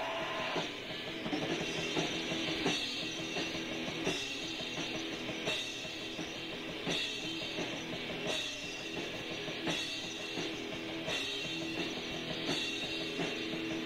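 Amateur rock band rehearsing on a home cassette recording: drum kit and guitars playing steadily, with a drum or cymbal accent about every second and a half. The tape's dull top end and hiss colour the sound.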